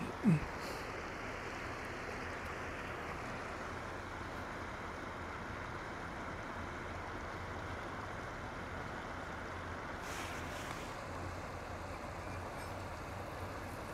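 Steady rushing of a shallow river flowing over rocks, with one short, loud sound falling in pitch just after the start.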